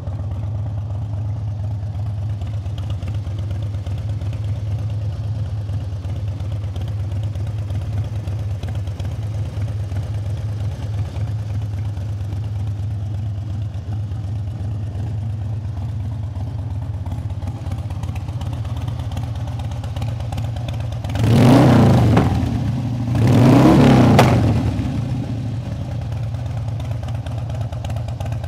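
Harley-Davidson Twin Cam 88 V-twin idling steadily through Screamin' Eagle II exhaust, then revved twice in quick succession about three-quarters of the way in before settling back to idle.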